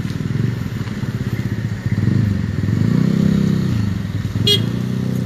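Engines of passing road traffic running close by, one growing louder about two seconds in as a vehicle comes past. A short sharp squeak or chirp about four and a half seconds in.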